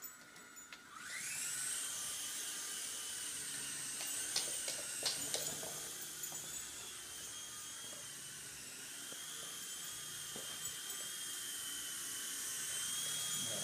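Traxxas DR-1 coaxial RC helicopter's electric motors and rotors spinning up about a second in, then a steady high whine as it flies, the pitch wavering slightly. A few sharp clicks come around the middle.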